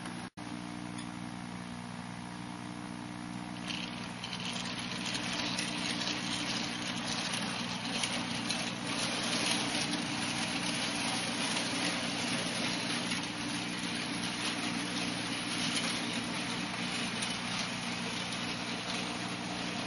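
Model railway train running on the layout: a steady low electric motor hum, joined about four seconds in by louder running noise of the locomotive and wagons' wheels on the track as the goods train moves along.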